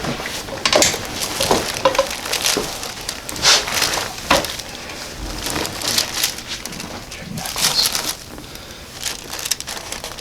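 Crinkling, rustling and creaking in irregular bursts as a person turns over on a chiropractic table.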